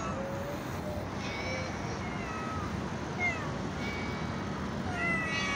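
Cats meowing softly: a handful of short meows at different pitches, one a little louder about three seconds in.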